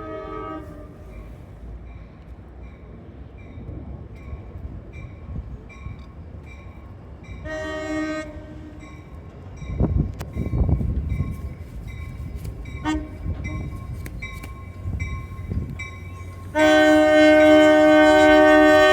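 Unrestricted Nathan K5LA five-chime air horn on an NJ Transit Comet V cab car sounding the grade-crossing sequence. Two short blasts, a brief toot about 13 seconds in, then a long, loud final blast near the end. Under it, a crossing bell dings steadily, about twice a second, and the passing train rumbles.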